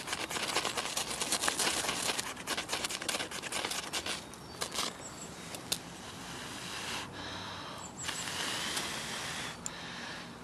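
A ferro rod (fire steel) scraped hard and fast with a striker, a rapid run of rasping strokes throwing sparks onto tinder. The scraping stops about halfway through.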